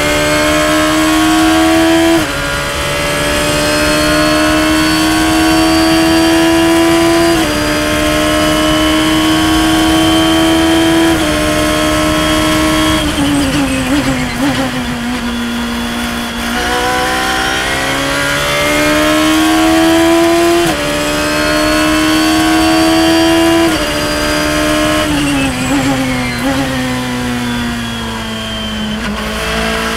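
Radical SR3 race car's engine at high revs, heard onboard. Its pitch climbs, then drops sharply at quick upshifts about two, seven and eleven seconds in. It slides down under braking and downshifts, and the same pattern repeats with upshifts around seventeen, twenty-one and twenty-four seconds and a second braking near the end.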